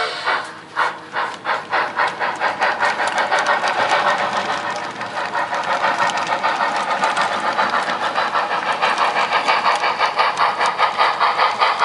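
Sound system of a model D&RGW K-27 steam locomotive chuffing steadily, several chuffs a second, as it moves cars. The chuffs grow louder over the first few seconds.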